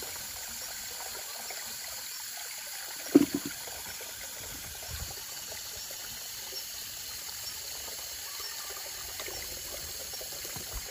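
Water from a garden hose running steadily into a plastic basin, splashing as it fills. One sharp knock about three seconds in.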